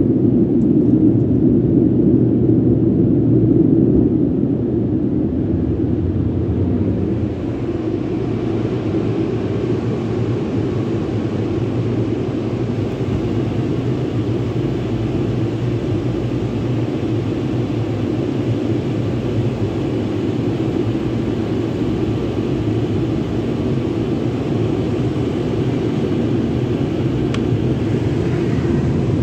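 Tunnel car-wash equipment heard from inside the car's cabin as one steady rushing noise: a deep rumble for the first few seconds, then a broader, hissier rush from about seven seconds in.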